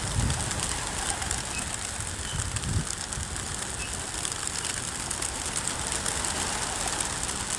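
A large flock of racing pigeons taking off and circling close by, the flapping of many wings making a dense, steady rush.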